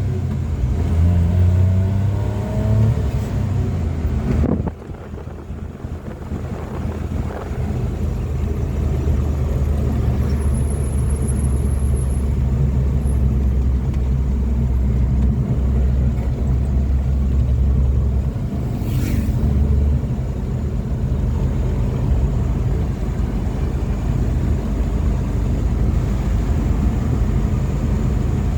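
Motor vehicle engine and road noise: a steady low rumble. The engine note rises and falls in the first few seconds, then the sound drops suddenly and settles into an even drone.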